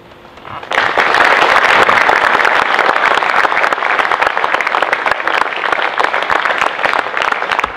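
Audience applauding, starting suddenly about a second in and thinning out near the end.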